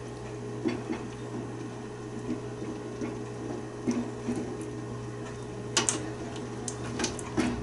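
A spoon stirring broth in a stainless steel stockpot, knocking against the pot several times, loudest about six seconds in, over a steady low hum.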